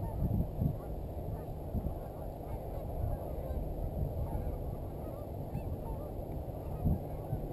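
A large flock of geese honking, many calls overlapping into a continuous din, with a few low thumps mixed in.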